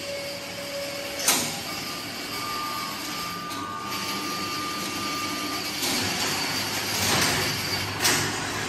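Steady machinery noise with a hiss and faint whining tones, broken by a sharp clack about a second in and another near the end.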